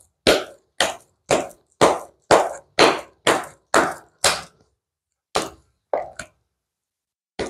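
Tarot deck being shuffled overhand, with packets of cards slapped from one hand onto the other. It goes in a steady rhythm of about two strokes a second, about ten in a row, then after a short pause three or four more strokes.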